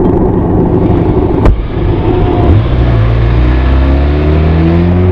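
Benelli TRK 502's parallel-twin exhaust, recorded close up. There is a single sharp click about a second and a half in, and from about halfway through the engine pitch rises steadily as the bike accelerates.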